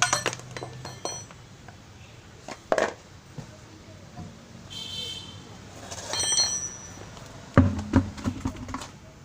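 Metal clinking and knocking of tools and parts being handled during car wheel and brake work, with two ringing metallic clinks midway and a heavier thump followed by several knocks near the end.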